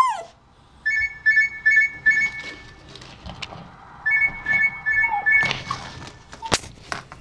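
Mobile phone alarm beeping rapidly, about four beeps a second, in two runs of a second or so, with scuffling and a couple of sharp knocks as a dog goes at the phone on a tiled floor.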